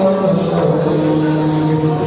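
Music with long, steady held notes.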